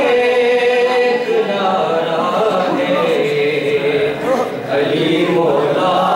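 A man chanting a manqabat (devotional verse in praise of Ali) into microphones. He holds a long steady note for about the first second and a half, then carries on the melody.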